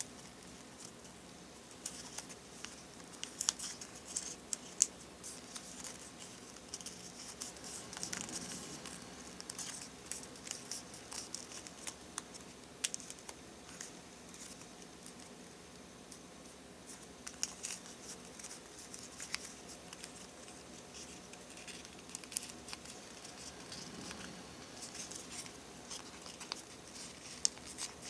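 A sheet of origami paper rustling and crinkling as fingers fold and crease it, with scattered sharp ticks as the paper flexes.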